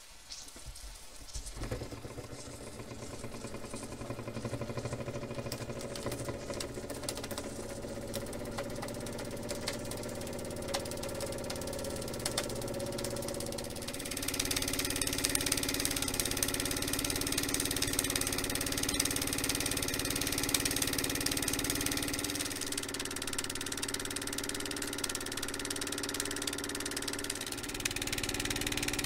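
Mamod Minor 1 model steam engine with a single oscillating cylinder, started by a flick of its flywheel, picking up about two seconds in and then running flat out: a fast, steady mechanical chatter with puffs of exhaust steam and hiss. About halfway through it becomes louder and hissier, with the boiler still blowing off excess steam at the safety valve.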